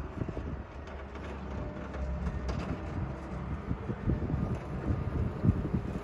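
JCB 409 wheel loader's diesel engine running as it approaches while plowing snow, a low rumble growing slowly louder, with wind buffeting the microphone.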